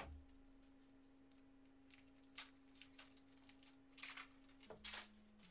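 Faint crinkling and rustling of a snack-bar wrapper being handled and opened, in a few short spells about two and a half, four and five seconds in, over a faint steady hum.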